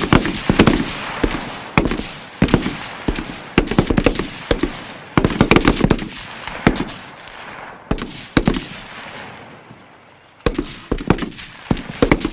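M16 assault rifle (5.56 mm) firing, single shots mixed with short rapid bursts of several rounds, each followed by an echoing tail. After a burst about eight and a half seconds in there is a lull of a couple of seconds before another burst and two more shots near the end.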